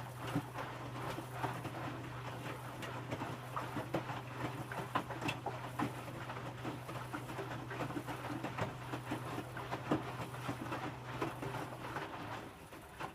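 Electrolux W455H commercial washing machine tumbling its load in the wash phase while the water heats toward 60 °C: a steady motor hum with irregular sloshing and knocking from the wet laundry in the drum. The hum stops near the end as the drum pauses.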